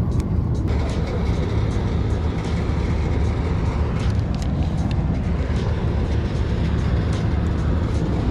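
Steady low rumble of water rushing out below a dam, with a few faint clicks of fishing tackle being handled.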